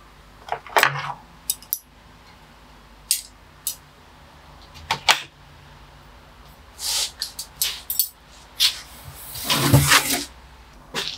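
Metal bonsai tools clinking and clattering against a wooden tray as they are picked up and set down one by one, in a string of sharp separate clinks. About nine seconds in comes a longer scraping sound as the tray is moved.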